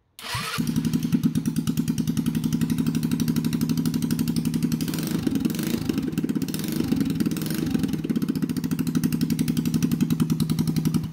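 GY6 150cc single-cylinder four-stroke scooter engine starting after a brief crank and catching about half a second in, then idling steadily with an even, rapid pulse.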